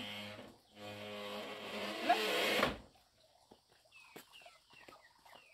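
Bamboo sliding door scraping as it is dragged open in two pushes, a steady grinding drone that stops about three seconds in.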